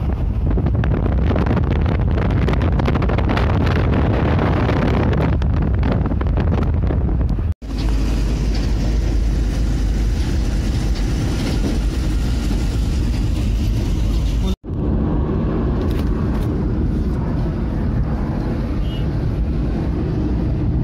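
Steady road and wind noise of a car driving at speed, heard from inside the cabin, with the low rumble strongest. The sound cuts out abruptly twice, about seven and about fourteen and a half seconds in, and resumes at once.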